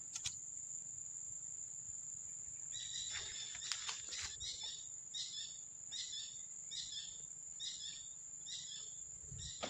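Steady high-pitched drone of insects, with a short sound repeating about every two-thirds of a second from about three seconds in.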